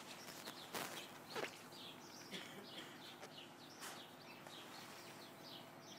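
Faint birdsong: many short, high chirps in quick succession, with a couple of soft knocks about a second in.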